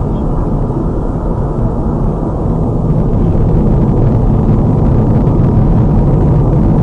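Steady road and engine noise inside a car's cabin while it drives at highway speed, a little louder from about three seconds in.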